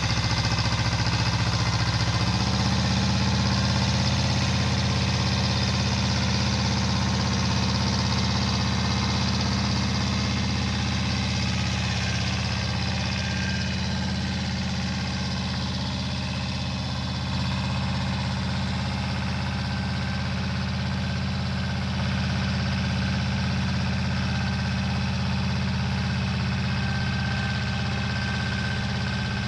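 Pasquali 425 compact tractor's diesel engine running steadily under load, pulling a plough through the soil; the engine note steps up slightly about two seconds in.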